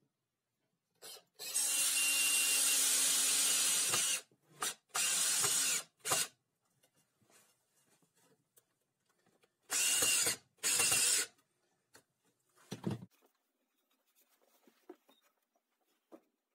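Makita LXT cordless drill-driver driving screws through a plank into old pallet wood. The motor makes one long run of about two and a half seconds, then a few short bursts, then two more short bursts later on. A low thump comes near the end.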